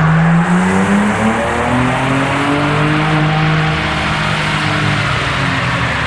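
Ford Bronco Raptor's twin-turbo 3.0-litre V6 running hard on a chassis dyno, the engine note rising and falling in pitch.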